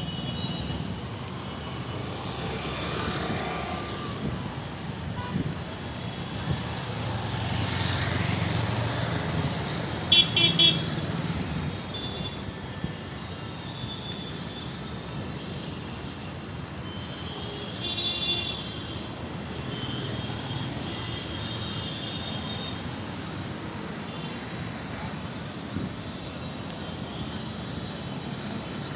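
Street traffic: vehicles run past with a steady rumble that swells around eight seconds in. Vehicle horns honk in a few short toots about ten seconds in, and again briefly around eighteen seconds.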